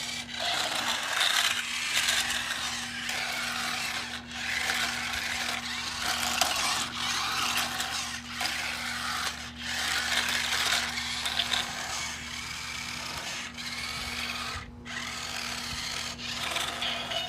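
Remote-control transforming robot toy car running its automatic demo routine: its small gear motors whir as it drives back and forth by itself, mixed with tinny music from the toy's built-in speaker.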